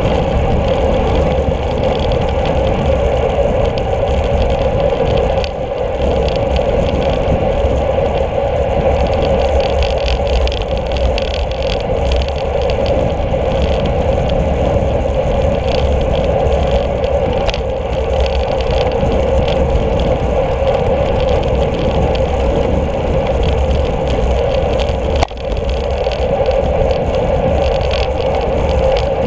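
Loud, steady wind rush on the microphone with road-bike tyre noise on asphalt, from a bicycle riding at speed. A single short knock comes near the end.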